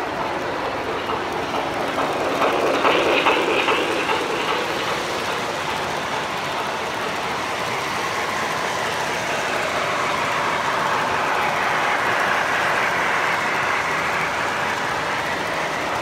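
O-gauge model train cars rolling past on metal track: a steady rolling rumble of the wheels, with a louder run of clicks about three seconds in.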